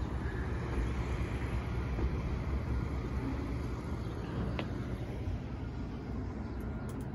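Outdoor city ambience: a low, uneven rumble of distant street traffic.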